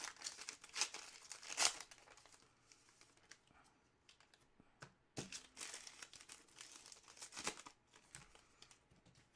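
Foil wrapper of a trading card pack crinkling and tearing as it is handled and ripped open, in two spells of crackling: one at the start and another from about halfway to near the end.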